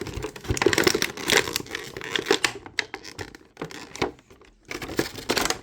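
Toy packaging crinkling and tearing in quick irregular bursts as a tightly sealed figure is pulled and worked free of it, with a brief lull about two-thirds of the way through.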